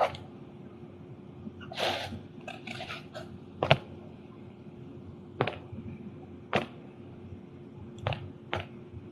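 Scattered sharp clicks, about six in all at irregular intervals, with a short rustling noise about two seconds in, over a steady low hum.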